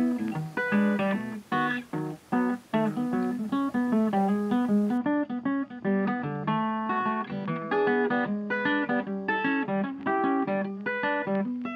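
Background music of acoustic guitar picking a melody in quick plucked notes.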